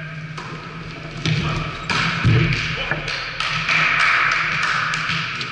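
Volleyball being struck several times during a rally, sharp smacks and a duller thud, echoing in a large sports hall.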